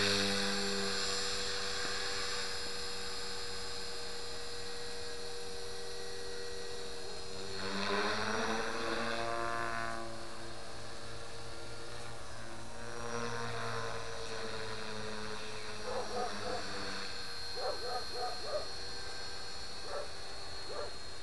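Align T-Rex 450 Pro electric RC helicopter in flight: a steady whine from its motor and rotor. It swells and rises in pitch about eight seconds in, then eases back to a steady, fainter whine.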